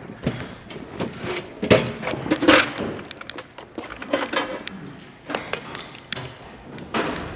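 Irregular clicks, taps and light knocks with rustling in between: hands handling tools and parts.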